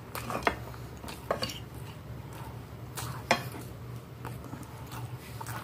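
Metal fork clinking and scraping against a glass plate while eating, a handful of sharp clinks with the loudest about three seconds in.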